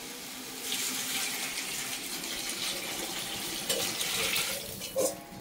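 Water poured from a steel vessel into a large aluminium pot of biryani masala, a steady splashing stream that stops about four and a half seconds in. A short knock comes just before the end.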